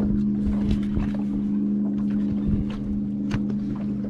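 A boat motor hums steadily at one unchanging pitch, with scattered light clicks and knocks from handling fishing gear and a small bass in the boat.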